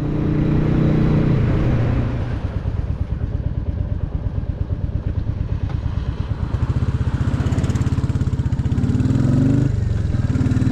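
Royal Enfield motorcycle engine running under way with a steady pulsing exhaust note. Near the end the revs climb twice, with a short break between.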